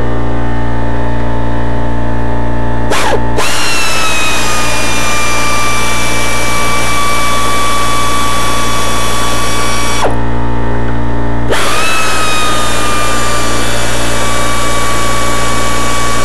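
Pneumatic air tool run twice, for about seven seconds and then about five, its whine dipping as it takes up load and then holding steady, while it undoes the upper intake manifold bolts. Under it, an air compressor hums steadily.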